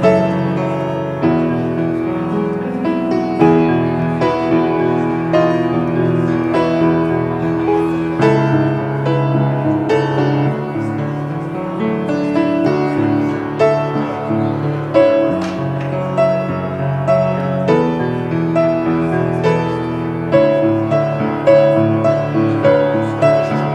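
Solo grand piano playing a slow piece in held chords that change every second or two.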